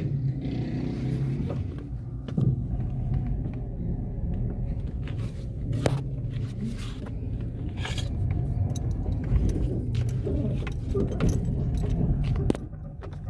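Inside the cabin of a 2010 Chevrolet Meriva 1.4 on the move: a steady low running and road rumble, with several sharp clicks and creaks from the front suspension. This is the creaking and knocking that the car makes when the steering is turned back and while driving.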